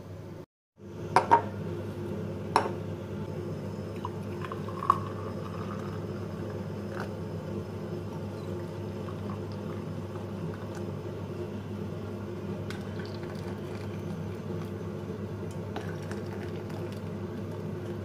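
Tea poured from a teapot into two double-walled glass tea glasses, filling them, over a steady low hum. A few sharp glass clinks come in the first few seconds.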